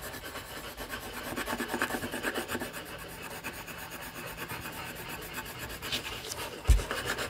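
Colored pencil scratching rapidly back and forth on paper, shading in a large area in quick, even strokes, with one low thump near the end.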